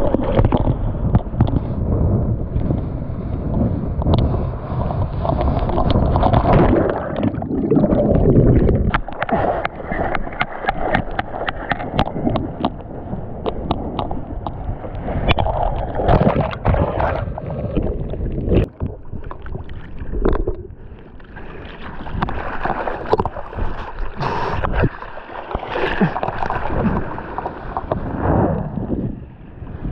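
Seawater sloshing, gurgling and splashing right at a GoPro held at water level as a surfer paddles through choppy surf, with many sharp splash clicks against the camera and wind buffeting the microphone.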